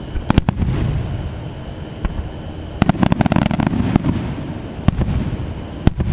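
Aerial fireworks shells bursting. A few sharp bangs come near the start, then a rapid cluster of crackling reports about three seconds in, then two single bangs about a second apart near the end, each with a low rumbling echo.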